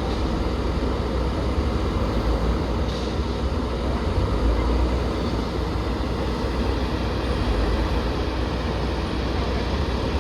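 JCB backhoe loader's diesel engine running steadily: a continuous low rumble with no sharp knocks or pauses.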